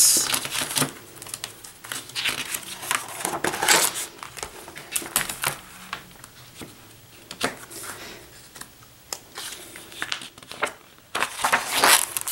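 Paper pages of a spiral-bound sketchbook being handled and turned, rustling and crinkling in irregular bursts. The rustles are louder a few seconds in and again near the end.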